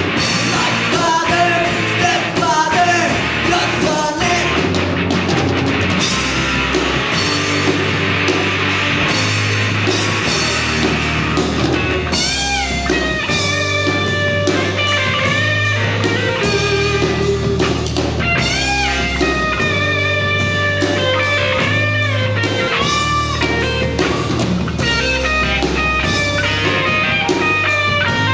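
Live rock band playing electric guitar, bass guitar and drum kit, with held bass notes changing every second or two. From about halfway through, a lead line of bending, sliding notes comes in over the top.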